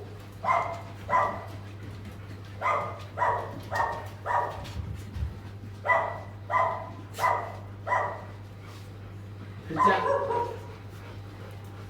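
A dog barking repeatedly in short runs of two to four barks, with a longer, rougher bark about ten seconds in. A steady low hum runs underneath.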